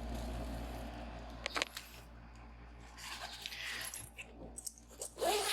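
Rustling and a few sharp metallic clinks from a rifle and a soft rifle bag being handled.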